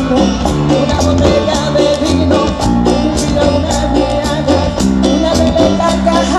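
Live cumbia band playing: a bass line, a melody line and steady, even percussion strokes.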